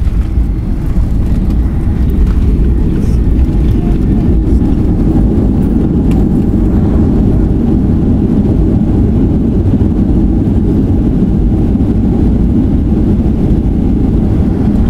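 Loud steady low roar and rumble inside the cabin of a Boeing 737 airliner on its landing rollout just after touchdown: engine roar and the wheels rumbling on the runway as the plane slows.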